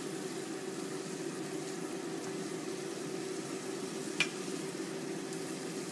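Beef and chopped kimchi sizzling over high heat in a stone pot: a steady frying hiss over a steady low hum, with one short click about four seconds in.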